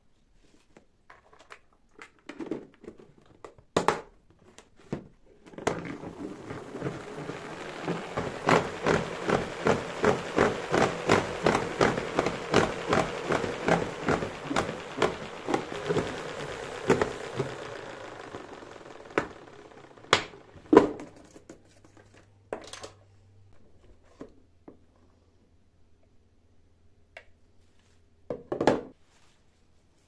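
Push-button salad spinner being pumped about twice a second, a click at each press over the whirr of the spinning basket drying washed greens; the whirr builds, then fades as the basket coasts to a stop. Leaves rustle and the plastic lid and basket knock and clatter before and after the spinning.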